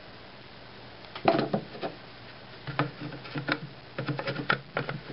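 An AK-47 magazine being handled and brought up to the rifle's magazine well: a few sharp clicks a little after a second in, then a scattered run of clicks and knocks through the second half.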